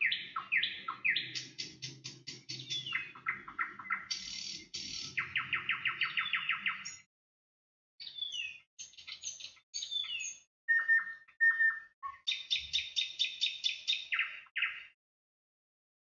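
A songbird singing in phrases of rapid trills and repeated high chirps, some notes sweeping downward, with a pause about seven seconds in and the song stopping about fifteen seconds in.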